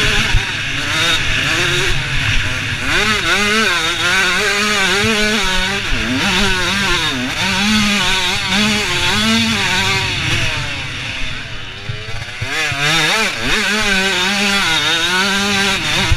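Supermini motocross bike's engine at race pace, revving up and falling back again and again through gear changes, with wind rushing past the microphone. About two-thirds through it backs off for a moment, then winds up again.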